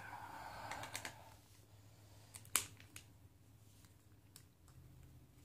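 Plastic action-figure parts clicking and scraping as a Hulkbuster build-a-figure's pieces are handled and fitted together, with a rubbing scrape in the first second and one sharp click about two and a half seconds in.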